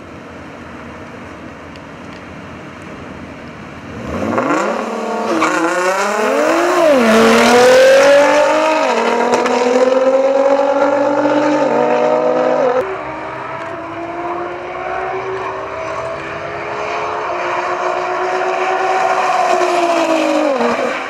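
Two modified twin-turbo V6 Nissan GT-Rs launching from a standstill in a dig race. After a quieter few seconds, about four seconds in, the engines rev hard and climb in pitch, dropping back twice on quick upshifts before pulling steadily at high speed. The sound then carries on more distantly, slowly rising in pitch and falling off near the end.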